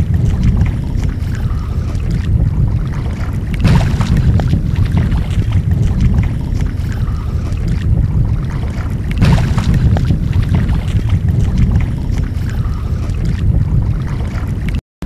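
Wind buffeting the microphone over open water: a steady low rumble that swells and eases with the gusts. It cuts out for a moment near the end.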